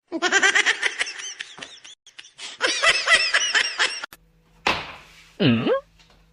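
Laughter, a long run of quick repeated laughing peals lasting about four seconds, followed near the end by a short swish and a brief swooping tone.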